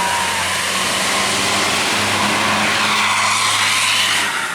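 A road vehicle passing close by: a steady engine drone under heavy tyre and road noise. The noise swells near the end, then cuts off suddenly.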